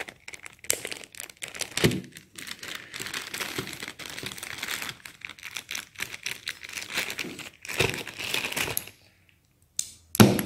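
A plastic bag crinkling and rustling as it is handled, with many small clicks mixed in. It stops about nine seconds in, and a single sharp knock follows near the end.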